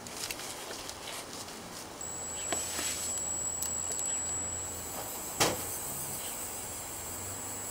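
3D printing pen's filament-feed motor running as it extrudes molten plastic, a steady thin high whine over a low hum that starts about two seconds in. A single sharp click comes about five seconds in.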